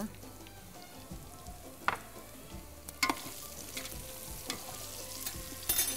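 Onion, garlic and spices sizzling in hot oil in a large steel pot as they are stirred with a spoon, the spoon knocking against the pot about two and three seconds in and several times quickly near the end.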